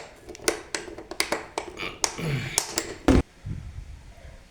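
A string of light taps and clicks from handling the wiring and fittings on an electrical demonstration board, with a sharper, louder knock a little after three seconds in.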